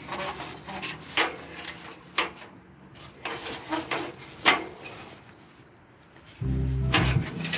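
Scattered clicks, knocks and rubbing of a phone being handled and jostled close to the microphone. A louder low hum comes in about six and a half seconds in.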